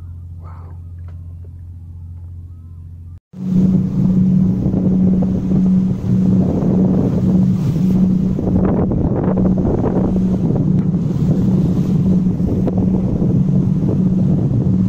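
A steady low boat-engine hum, then after about three seconds a sudden cut to loud wind buffeting the microphone and water rushing past a moving sailboat's hull, over a steady pulsing engine drone.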